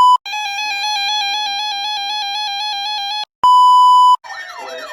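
Electronic alert tones. A steady beep cuts off just after the start. Then comes about three seconds of a fast-warbling alert made of several tones at once, and the steady beep again for under a second. Rising and falling siren wails begin near the end.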